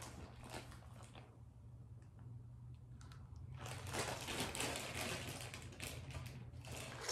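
Faint clicking and rattling of plastic Rattlesnake Jake toy parts being handled, sparse at first and thickening into a dense run of small clicks from about three and a half seconds in.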